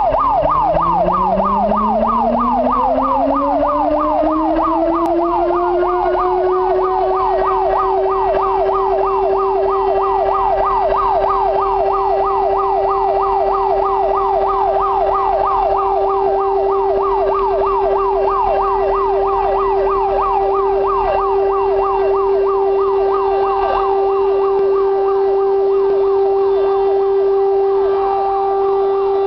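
A fire station's alarm siren winding up from a low growl into a steady, held tone. Over it a fire engine's siren yelps in fast, even up-and-down sweeps throughout.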